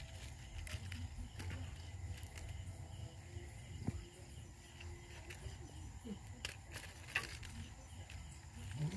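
Night-time outdoor ambience: insects chirping steadily, with scattered light clicks and scuffs of cats moving and pawing over dry, stony dirt, over a low steady rumble.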